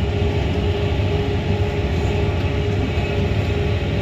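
A tractor pulling a Case IH discbine (disc mower-conditioner) as it cuts hay. Engine and mower run steadily together as a loud low drone with a constant hum from the mower drive.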